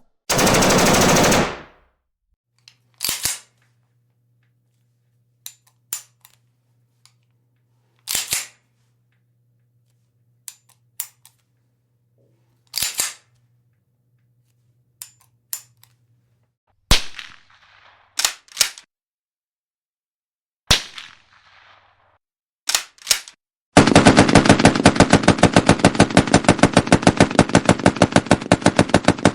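A sequence of gunfire sound effects: single sharp shots and short bursts spaced a few seconds apart, with quieter clicks between them. About five seconds before the end, a long burst of rapid automatic fire begins and keeps going.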